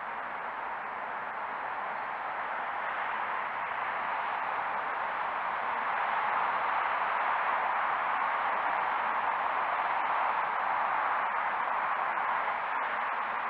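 Steady, even hiss from a trail camera's microphone, growing slightly louder around the middle, with a faint high-pitched steady whine above it.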